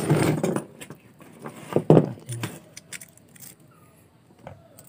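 Stainless-steel bidet flexible hose jangling and clattering as it is handled and laid down on a bench: a burst of rattling at the start, a few knocks about two seconds in, then light clicks.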